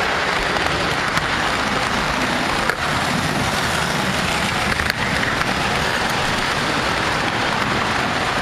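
O scale model train running on three-rail track, heard from a camera riding on it: a steady rattling run of wheels on rail and motor, with a few brief clicks.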